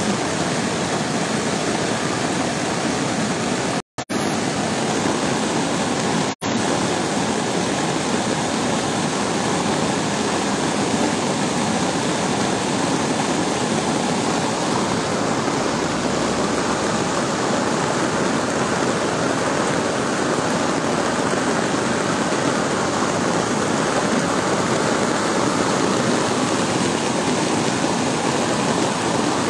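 Muddy floodwater rushing and churning as a torrent through a drainage channel and over its concrete edge: a steady, loud rush of water. The sound cuts out very briefly twice, about four and six seconds in.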